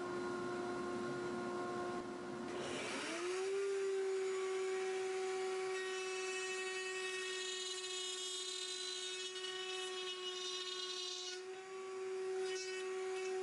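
Router on a router table whining steadily while its bit cuts MDF, with a noisy rasp of cutting under the whine. About two and a half seconds in the rasp stops and the whine rises slightly in pitch as the unloaded motor speeds back up, then it keeps running steadily.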